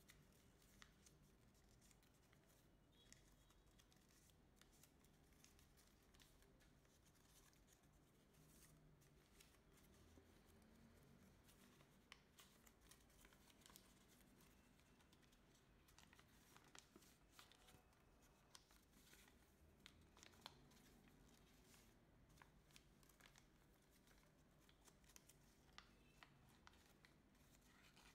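Faint crinkling and rustling of a folded sheet of origami paper being handled and pressed into creases, with scattered soft crackles, over near silence.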